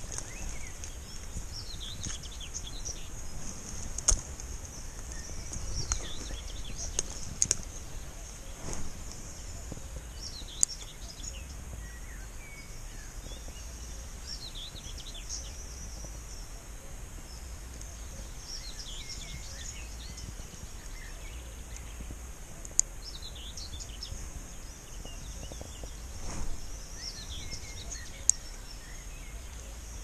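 Wild birds singing in the background, a stream of short falling chirps throughout, over a steady high hiss and a low rumble of wind on the microphone. Four or five sharp clicks stand out here and there.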